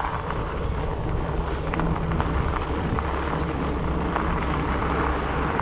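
Fat-bike tyres rolling over a gravel rail-trail with wind rushing on the microphone, a steady low rumble with small scattered ticks.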